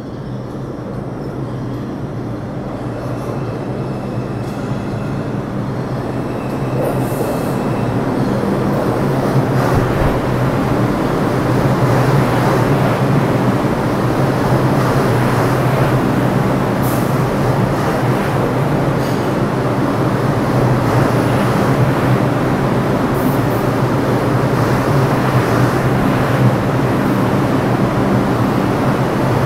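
New York City subway train pulling into an underground station. It grows steadily louder over the first ten seconds or so as it nears, then runs along the platform at a steady level with a low, even hum under the wheel and car noise.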